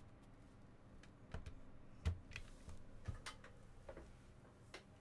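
Faint, scattered light clicks and taps, about seven of them at irregular intervals; the sharpest comes about two seconds in.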